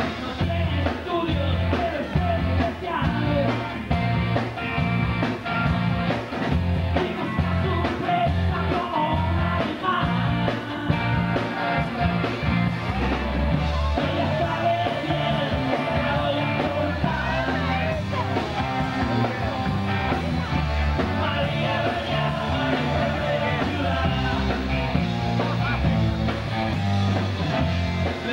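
Live rock band playing a song: drums, bass guitar and two electric guitars, with a singer's voice over the music.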